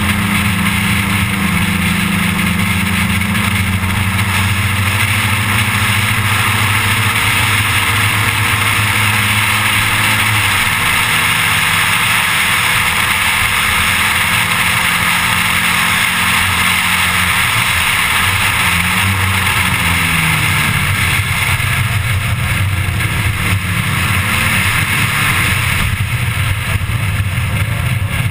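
1987 Audi 4000S race car engine under hard driving on a track, its note falling and climbing several times as the car brakes for corners and accelerates out, under a steady loud rush of wind noise.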